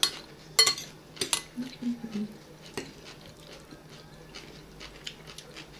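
Cutlery clinking against a plate while eating: a few sharp clicks in the first three seconds, then quiet.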